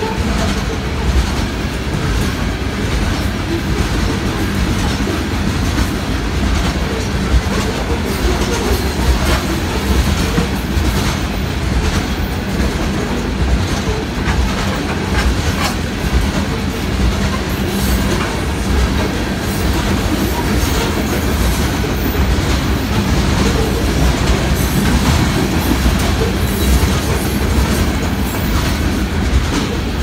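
Empty coal train's hopper cars rolling past: a steady rumble of steel wheels on the rails with repeated clacking over the joints.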